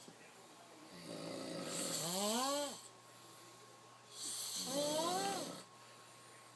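A man asleep on a couch snoring: two raspy snores about three seconds apart, each with a pitched tone that rises and then falls, with quiet gaps between the breaths.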